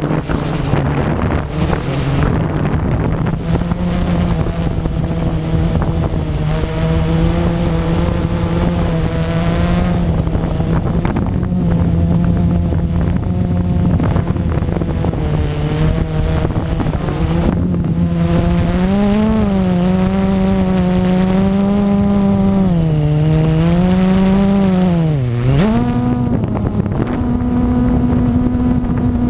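Blade 350 QX quadcopter's brushless motors and propellers, heard from the aircraft itself: a steady buzzing hum that swings up and down in pitch several times in the second half as the motor speed changes, dips sharply near the end, then holds at a slightly higher pitch.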